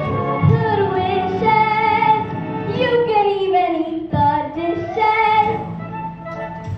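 A group of children singing a song over musical accompaniment, holding and gliding between sung notes.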